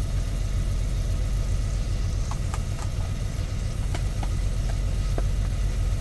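Big rig's diesel engine idling: a steady low rumble. A scatter of light clicks comes from about two to five seconds in.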